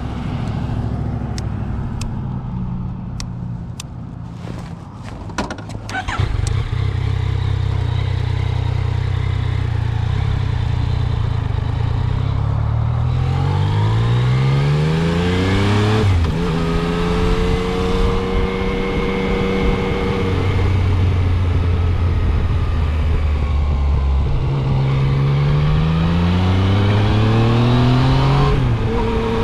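Motorcycle engine heard from the rider's seat: it runs low at first, with a few sharp clicks, then pulls away with its pitch rising. It changes gear about sixteen seconds in, holds a steady cruise, and rises again to a second gear change near the end.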